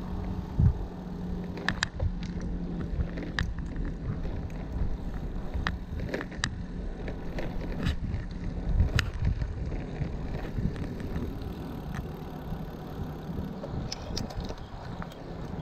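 Bicycle riding along a paved road, picked up by a GoPro on the ride: low road and wind rumble with a steady low hum, broken by frequent irregular clicks and rattles as the bike goes over bumps.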